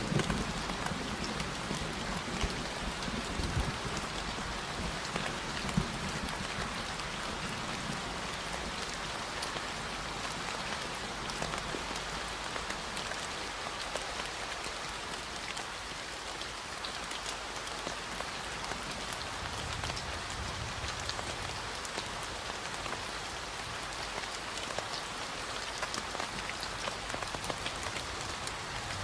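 Steady rain falling on a surface: a dense, even hiss made of many small drop ticks, holding a constant level.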